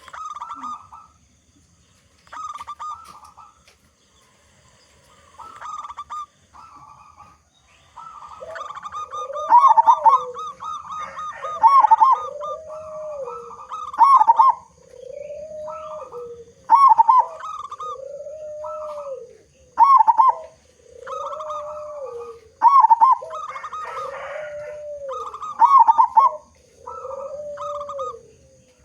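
Zebra dove (local perkutut) cooing its song repeatedly. After a few short, scattered calls, it settles from about a third of the way in into a regular phrase roughly every three seconds. Each phrase is a quick stuttering run of higher notes ending in a lower, drawn-out arched coo.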